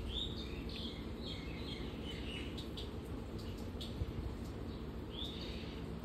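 Samsung 8 kg top-load washing machine spinning its drum below full speed to wring water from the clothes: a steady low hum. Repeated short high chirps sound over it.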